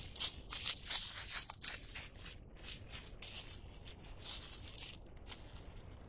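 Dry fallen leaves crunching and rustling under a deer's steps close to the microphone: a quick, irregular run of crisp crunches that thins out after about two and a half seconds, with a few more around the middle.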